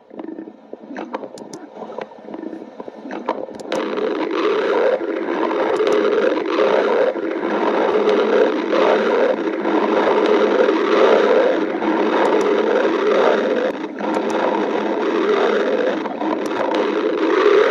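A badger's stomach growling: a long, low, wavering rumble with bubbling pulses, faint for the first few seconds and then loud and continuous, with a few light clicks.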